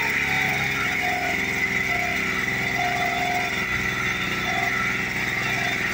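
Jikov 1453 single-cylinder four-stroke engine of a two-wheel walking tractor running steadily under load, pulling a tined cultivator and crumbler roller through the soil.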